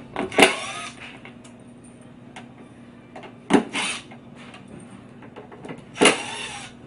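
Cordless drill/driver running in three short bursts about three seconds apart, backing screws out of the subwoofer enclosure's mounting brackets so they can be swapped.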